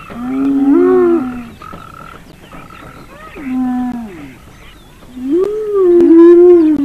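Spotted hyenas calling: three long, low, drawn-out calls, each about a second or more, that bend up and down in pitch, with two short higher-pitched tones between them.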